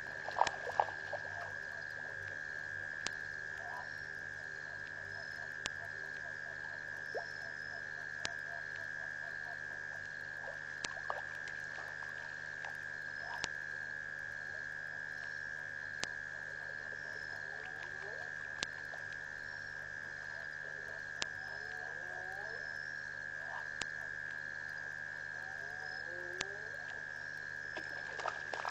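Frogs calling at a waterhole at night: short rising notes repeated in bunches, more often in the second half. Underneath runs a steady high-pitched drone, with scattered sharp clicks.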